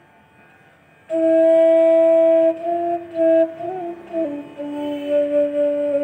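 Background music: a melody of long held notes that comes in about a second in, after a brief hush, and moves slowly between pitches.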